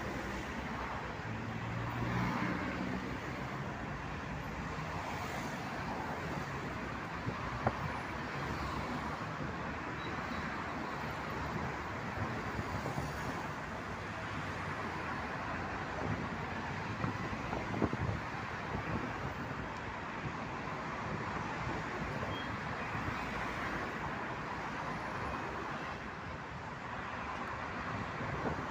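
Steady city street traffic noise: the continuous hum of cars and other road vehicles passing, with a couple of brief clicks.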